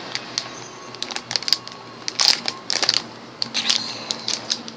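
A small plastic candy packet being torn open and crinkled in the fingers: sharp crackling in three short spells about a second apart.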